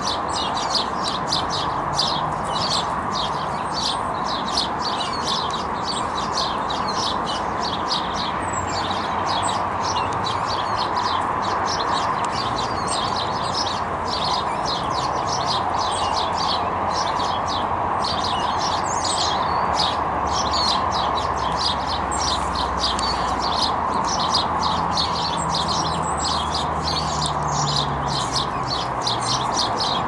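A moorhen chick peeping: short high chirps repeated about three or four times a second without a break, over a steady background hiss.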